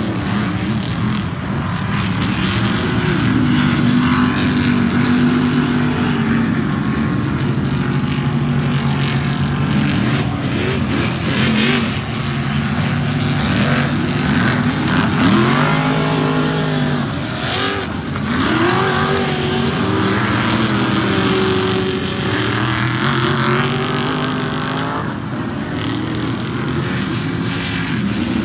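Several Ultra4 4400-class off-road race cars racing on a dirt track, with more than one engine running at once. Their engines rev up and fall back repeatedly as the cars accelerate and shift.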